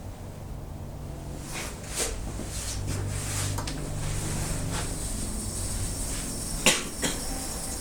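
A series of sharp knocks and clicks from workshop handling at a wood lathe, the loudest a single sharp knock near the end, over a low hum. A steady tone sets in just before the end.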